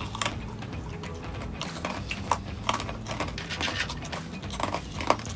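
Close-up crunching and chewing of crispy fried snack sticks, an irregular run of sharp crisp cracks, with a few clicks as a hand picks through the snacks on the plate.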